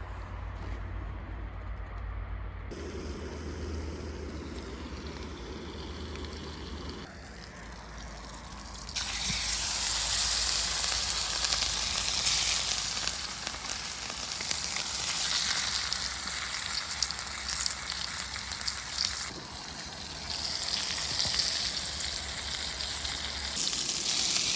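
Salmon frying in a pan, a dense sizzle that comes in loudly about nine seconds in after quieter stretches and keeps on, dipping briefly near the two-thirds mark.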